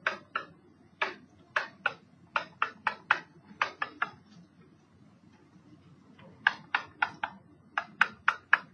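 Stylus tapping and stroking on an interactive whiteboard screen while an equation is handwritten: a quick run of sharp ticks, a pause of about two seconds midway, then another run of ticks near the end.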